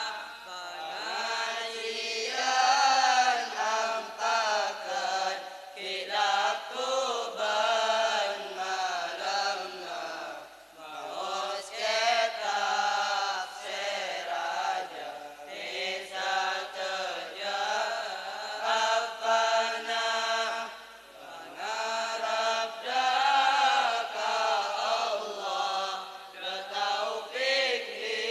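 A group of boys chanting Madurese syi'ir (devotional verse) in unison, unaccompanied, in long melodic phrases with short pauses about 11 and 21 seconds in.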